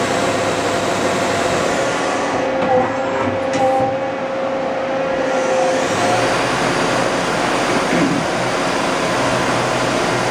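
Daewoo Puma 240-B CNC lathe spindle running at 2500 RPM: a steady whine over a loud, even hiss. The top of the hiss thins out for a few seconds in the middle.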